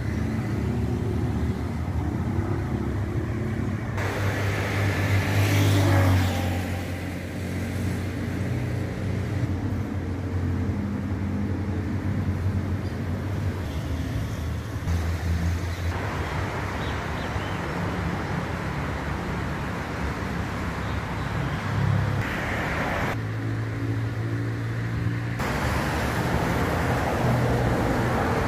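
Road traffic: a steady low engine hum with passing vehicles, one passing close and loud about five to six seconds in.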